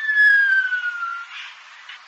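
An animal's long whistled call, a single clear tone that falls slowly in pitch and ends about a second in, over a steady hiss.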